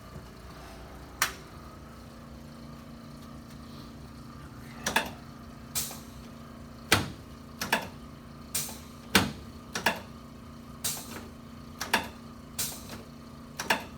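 A chiropractor's thrusts on the back of a patient lying face down give a series of sharp cracks and thumps, about fifteen at irregular intervals, most of them from about five seconds in. A steady low hum runs under them from about two seconds in.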